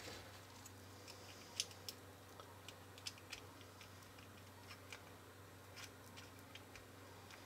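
Faint, scattered clicks and taps of the hard plastic shell pieces of a Zuru Smashers eyeball ball being handled and pressed together during reassembly.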